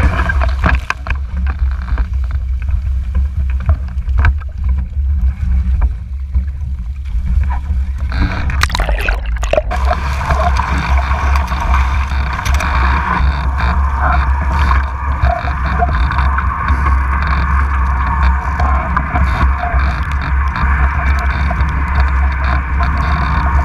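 Wind buffeting the boat-mounted camera's microphone over water rushing along the hull of a Mach 2 Moth sailing dinghy under way, with a burst of splashing about nine seconds in.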